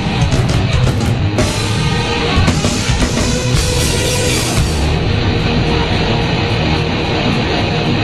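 Loud heavy rock background music.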